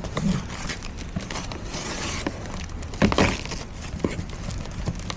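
Packaging handled during an unboxing: wrapping rustling and crinkling, with scattered knocks and a louder thump or scrape about three seconds in.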